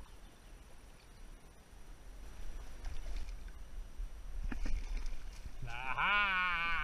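A hooked trout splashing at the water's surface as it is brought to the landing net. Near the end comes a person's long, wavering vocal exclamation, which is the loudest sound.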